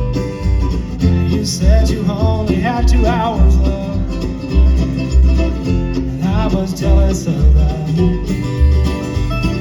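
Bluegrass band playing an instrumental break: banjo and guitar over a steady bass beat, with a lead melody line that wavers in pitch.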